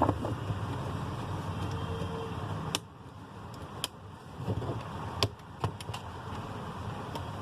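Sharp plastic clicks, about half a dozen, as the phone's plastic back cover is pried off by fingernail and its clips snap loose, over a low hum that stops about three seconds in.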